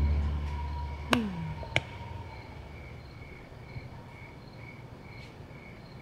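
An orchestral sting dies away, then two sharp clicks about half a second apart, the first followed by a quick falling tone. Under it, crickets chirp evenly, about two chirps a second.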